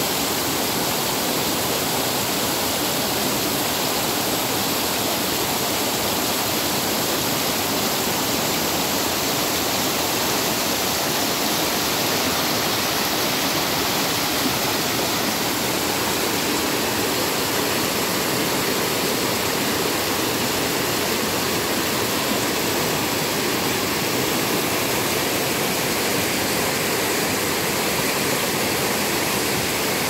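Mountain stream rushing over boulders in small cascades: a steady, even rush of white water.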